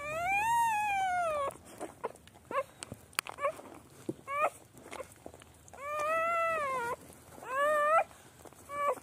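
Newborn puppies crying: a string of about seven high whining cries that rise and fall in pitch, some short squeaks and some drawn out, the longest about a second and a half.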